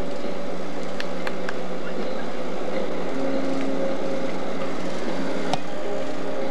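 A steady hum under faint voices of people playing outdoors, with a few sharp knocks; the clearest comes about five and a half seconds in.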